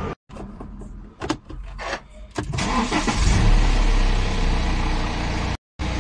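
BMW 320d's N47 four-cylinder turbodiesel starting about two and a half seconds in, rising to a loud peak and then settling into a steady idle after its oil change. A few light clicks come before it.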